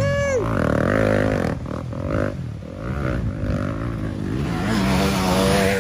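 Dirt bike engine revving hard under load as it churns through deep mud, the pitch rising and falling over and over and holding steadier near the end.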